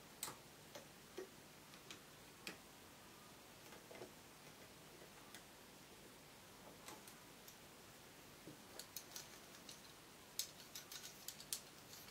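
Faint, irregular clicks of a metal loom hook and rubber bands against the plastic pegs of a rubber-band loom as bands are hooked and looped over, with a quicker run of clicks near the end.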